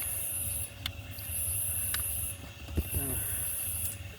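Insects buzzing outdoors: high-pitched phrases about a second and a half long with short breaks, repeating, over a low rumble and a few sharp clicks from handling.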